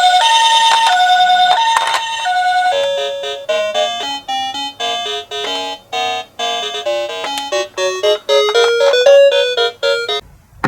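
Toy ambulance's electronic two-tone siren, alternating a high and a low tone in the Japanese ambulance pattern. After about two and a half seconds it gives way to a quick electronic tune of bright notes, which stops shortly before the end.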